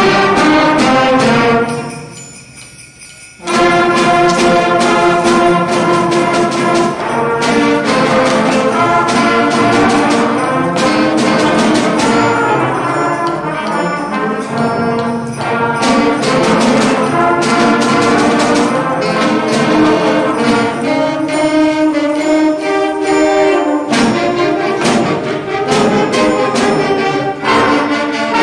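Live band music with brass and jingle bells playing an upbeat Christmas piece. It breaks off briefly about two seconds in, then resumes.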